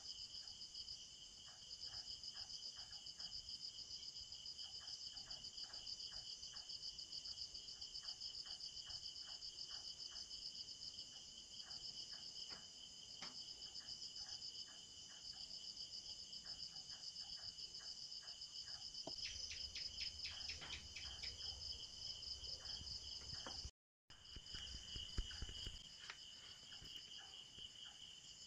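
A steady chorus of insects trilling at two high pitches, with faint light clicks underneath. The sound cuts out for an instant about three quarters of the way through.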